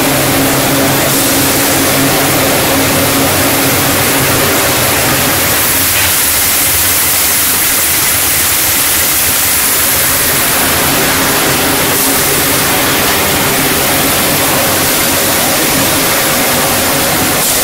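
High-speed plastic mixer running: a loud, steady hum from its electric drive with a strong hiss over it. The hum thins for a few seconds midway while the hiss goes on.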